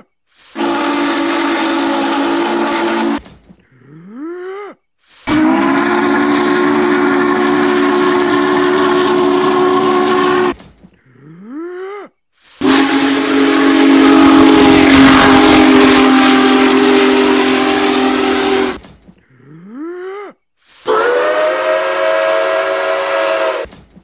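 Steam locomotive whistles from several different engines, blown one after another in four blasts. Each blast is a chord of several steady tones: the first and last last about three seconds, the middle two five to six seconds, and the third is the loudest and hissiest. Before each blast comes the same short rising voice sound.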